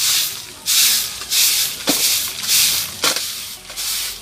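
Stiff stick broom (walis tingting) sweeping bare dirt ground in repeated swishing strokes, about one and a half a second. Two brief falling squeaks cut in about two and three seconds in.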